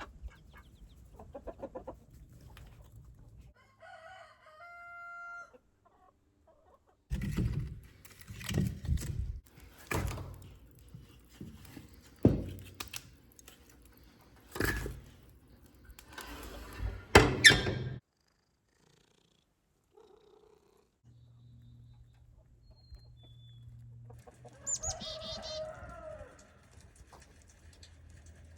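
Chickens clucking on a homestead, with a rooster crowing once briefly, and a run of sharp knocks in the middle that are the loudest sounds.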